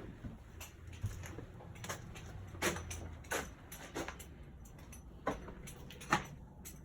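A series of irregular light knocks and clicks, about one a second, over a low steady hum.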